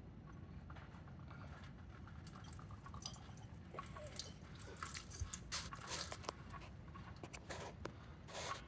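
Faint, irregular drips and small clicks of oil dripping as a car's oil filter is unscrewed by hand. They grow busier about halfway through.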